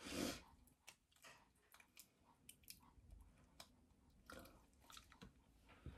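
Near silence with a soft rustle at the start, then scattered faint sticky ticks and squishes: latex and modelling putty being peeled off the skin of a face.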